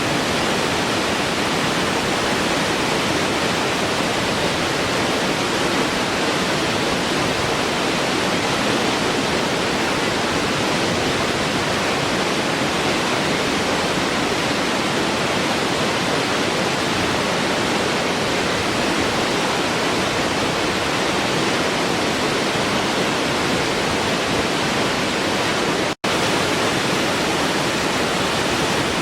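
Waterfall rushing with a steady, even roar of falling water. The sound cuts out for a split second a few seconds before the end, then carries on unchanged.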